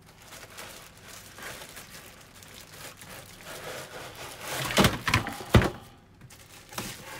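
Cardboard box and plastic wrapping rustling and crinkling as packed parts are handled, then a few sharp knocks about five seconds in as the box and plastic racks bump together.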